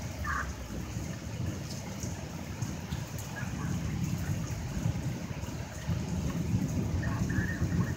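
Wind buffeting the microphone in a low, uneven rumble that grows stronger toward the end, as a thunderstorm approaches. A few brief faint higher sounds come through now and then.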